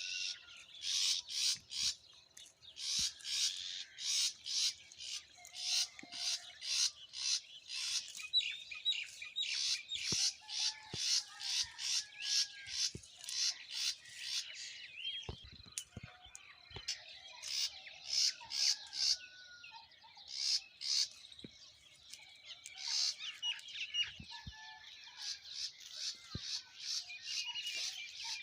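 Songbirds chirping: runs of short, high chirps, about three a second, broken by brief pauses, with softer whistled calls from other birds beneath.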